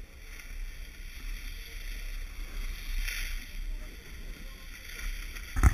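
Snowboard sliding and scraping over packed snow on a downhill run, with wind rumbling on the microphone. There is a louder scrape about three seconds in and a sharp, loud burst at the very end.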